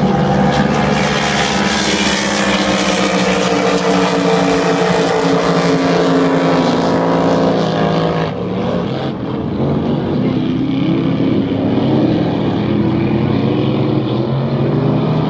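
Several supercharged V8 race boats running flat out together, a loud continuous multi-engine drone. Its pitch slides down slightly, it eases briefly about eight seconds in, then it wavers as they race on.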